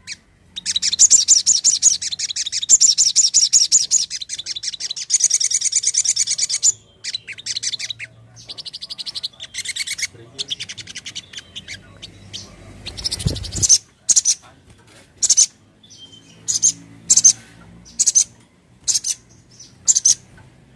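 Sogon (sogok ontong) sunbird calling: a fast rattling run of high chirps for the first several seconds, then scattered notes, then single sharp "cret" calls about once a second. A low thump comes a little past the middle.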